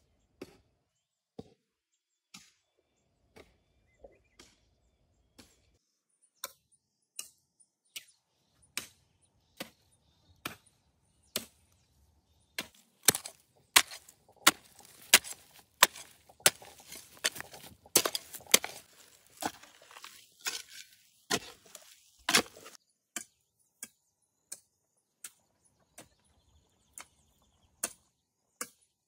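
A metal hoe chopping into dry, stony soil, one stroke about every second. About halfway through the strokes get louder and come faster, with loose soil and stones scattering between them.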